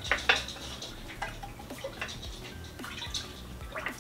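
Milk in a large stainless steel stockpot being stirred with an up-and-down motion as diluted rennet goes in: irregular sloshing and dripping with small clicks, and one sharp knock about a third of a second in.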